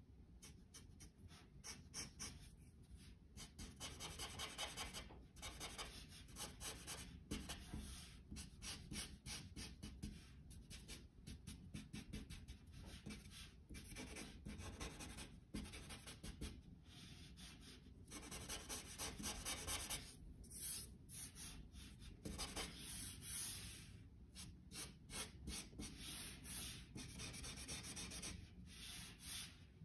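Copic marker nib stroking across drawing paper in quick, short, scratchy strokes, with brief pauses between runs of strokes.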